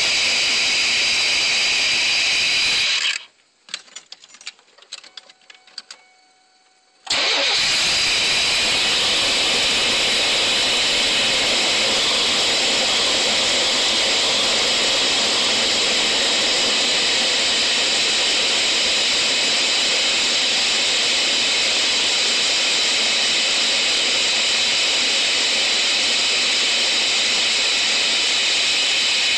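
1990 Chevy Astro van's engine running with a loud, steady hissing roar; it cuts out abruptly about three seconds in, leaving a few seconds of near quiet with small clicks, then is running again. This fits the van's fault of shutting off on start-up after a throttle body rebuild and new injectors.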